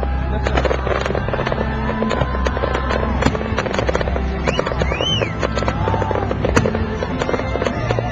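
Fireworks going off in rapid crackling and popping bursts, over music with steady low bass notes. A short rising-and-falling whistle about five seconds in.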